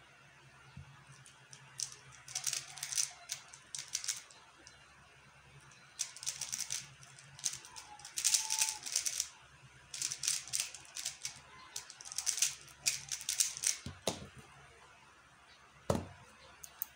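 QiYi X-Man Tornado V1 3x3 speedcube being turned fast during a solve: bursts of rapid plastic clicking and clacking from the layers, broken by short pauses. Two sharp knocks near the end.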